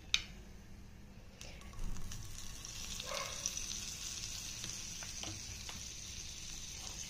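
Butter sizzling steadily as it melts and foams in a hot non-stick frying pan, starting about a second and a half in, with a few soft knocks as it goes in. A sharp click comes right at the start.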